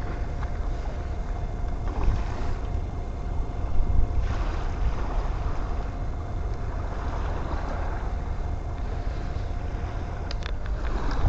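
Wind buffeting the camera's microphone: a steady low rumble with a hiss over it, broken by a few brief knocks.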